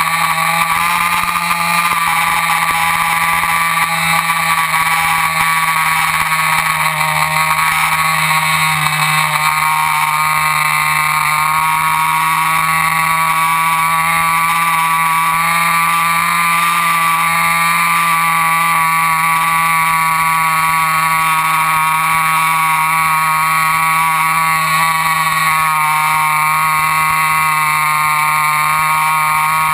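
RC airplane's motor and propeller running steadily at flying speed, the pitch drifting slightly up and down with small throttle changes.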